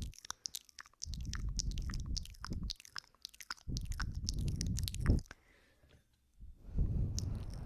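Close-miked ASMR ear-nibbling and kissing mouth sounds on a binaural microphone: a steady patter of wet lip smacks and tongue clicks. Three stretches of breath rumble on the mic, and a sharp smack about five seconds in.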